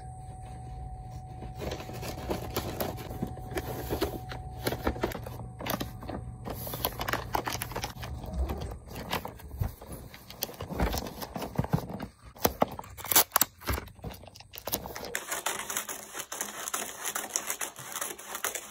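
Gift-wrapping paper crinkling and rustling in irregular crackles and clicks as it is cut, folded and taped around boxes.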